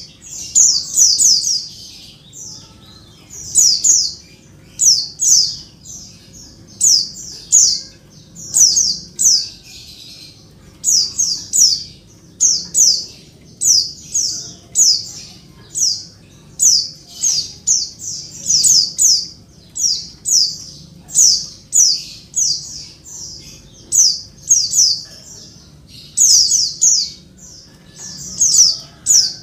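A female white-eye (pleci) calling noisily and without let-up, in short high-pitched notes grouped in quick runs of two to four. These are the calls a female gives to summon a male, used here as a lure to get males singing.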